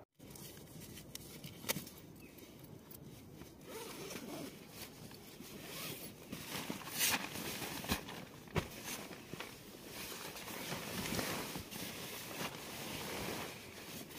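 A nylon sleeping bag being handled and rustled inside a tent, with a zipper being pulled and short scrapes and clicks throughout.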